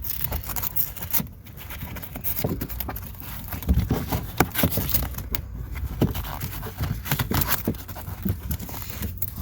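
Fabric seat cover being handled and worked onto a truck seat: irregular rustling, scraping and soft knocks as its straps are pulled through the seat.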